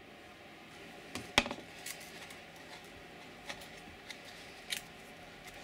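Light handling clicks and ticks from loose aluminium MIG wire and its spool being worked by hand at a spool gun's wire-feed mechanism: one sharp click about a second and a half in, then a few fainter ticks spread over the rest.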